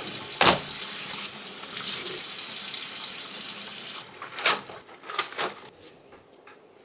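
Tap water running into a sink, with a sharp knock about half a second in. The water stops about four seconds in, followed by a few more knocks.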